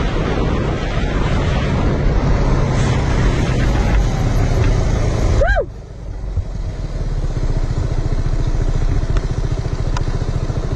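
Water-cooled four-valve scooter engine with a stock exhaust pipe, running at road speed under heavy wind noise. A little past halfway the wind drops away after a brief rise and fall in pitch, and the engine settles to a quieter, even, rapid beat.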